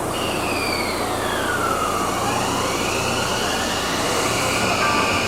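Tokyu 9000 series train's Hitachi GTO VVVF inverter and traction motors whining over the rumble of the running train. The whine cuts in suddenly, falls in pitch for about two seconds, then rises again and holds high.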